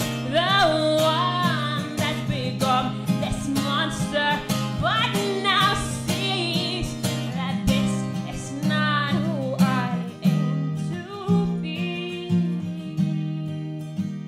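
A woman singing to her own strummed acoustic guitar. The voice mostly drops away about ten seconds in, leaving the guitar strumming.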